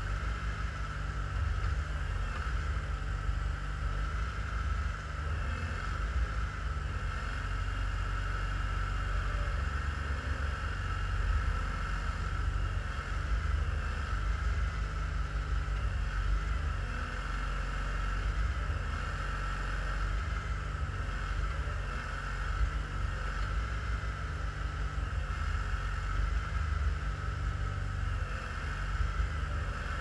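Wards Twin 20 garden tractor engine running steadily under load from the hydraulics of a rear-mounted Brantly backhoe as it digs, a low rumble with a steady high whine over it.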